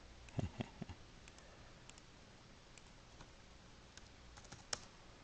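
Faint clicks of a computer mouse and keyboard: a quick cluster of three or four clicks within the first second, scattered light taps after, and one sharper click near the end.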